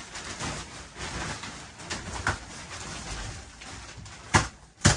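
A bulky futon mattress being handled and shoved onto a bunk bed frame: shuffling and rustling, then two sharp thumps about half a second apart near the end.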